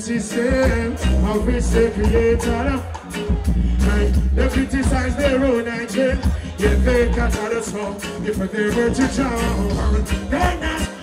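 Live reggae performance through the stage PA: a male singer singing into a microphone over music with a heavy, pulsing bass line.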